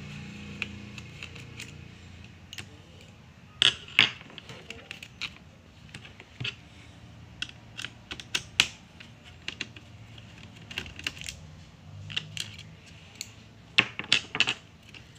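Irregular small clicks and taps of a screwdriver and fingers on a laptop's plastic chassis and battery while the battery is unscrewed and worked loose. The sharpest clicks come about four seconds in and in a quick cluster near the end.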